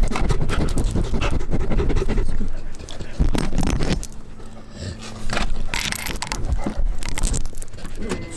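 Saint Bernard panting in quick repeated breaths.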